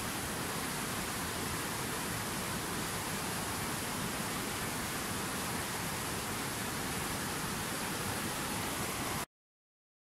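Fast white-water mountain river rushing over rocks: a steady, even rush of water that cuts off suddenly near the end.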